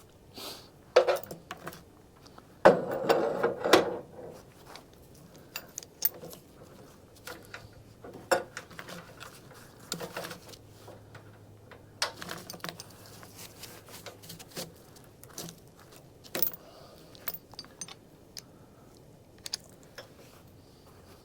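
Intermittent metallic clanks, clicks and rattles of sawmill hardware being handled, log clamps and hoist chain. The busiest stretch comes about three seconds in.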